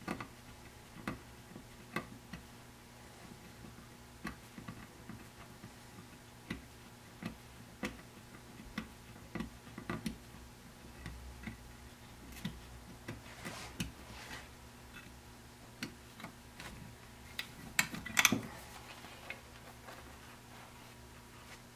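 Irregular light clicks and taps of a Ford C6 transmission valve body and its small metal parts being handled on a workbench, with a louder clatter of clicks about eighteen seconds in. A faint steady electrical hum runs underneath.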